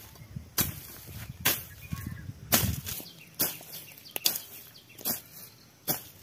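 Sharp swishing strikes of a hand sickle slashing through weeds and dry stalks near the ground, about once a second.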